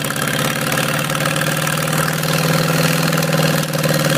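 Old farm tractor's engine idling steadily.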